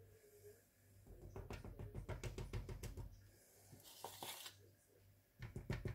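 Spoon scraping and tapping against a bowl of icing as it is drizzled over buns: a quick run of faint clicks and scrapes lasting about two seconds, a short scrape about halfway through, and a few more light taps near the end.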